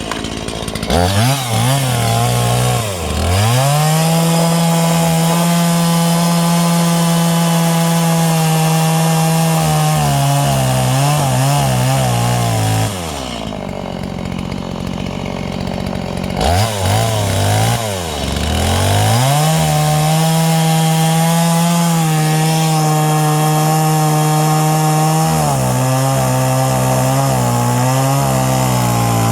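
Two-stroke chainsaw cutting 45-degree notches into logs for a roof truss. It revs up at the start and runs at full throttle, with the engine note sagging lower partway through each cut. Near the middle it drops to idle for a few seconds, then revs up again for a second cut.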